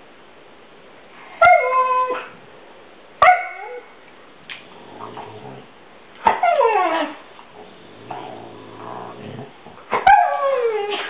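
Siberian husky vocalizing at another dog: four loud, pitched calls, the later ones sliding down in pitch, with quieter low grumbles in between. It is the frustrated complaining of a husky whose playmate won't play.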